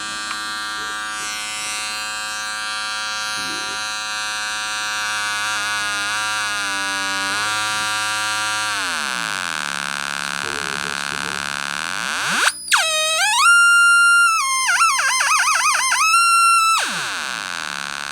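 Battery-powered electronic handlebar alarm siren sounding. A steady, buzzy many-toned note slides slowly down in pitch and fades; then a tone sweeps up into a loud, high wail that steps in pitch and warbles rapidly for a few seconds before falling away near the end.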